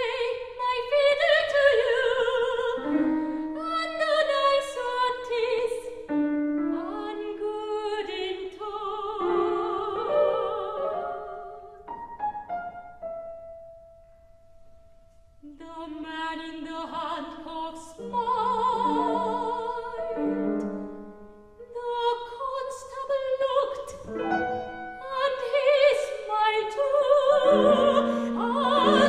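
Soprano singing an English art song with vibrato, accompanied by a grand piano. About halfway through the voice holds a single note that fades into a brief lull, then voice and piano resume and grow louder.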